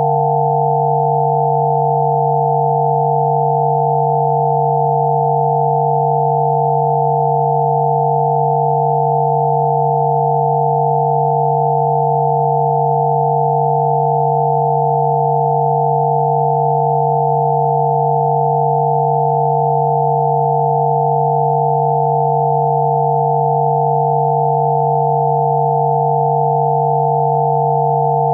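Steady electronic sine tones held without any change: one low tone with a cluster of higher tones above it. This is a synthesized 'healing frequency' tone track.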